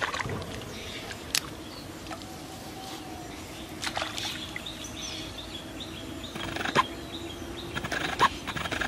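A hooked fish splashing briefly at the pond surface about four seconds in as it is pulled out on a bamboo pole's line, with a few short sharp clicks and knocks around it. Faint outdoor ambience underneath.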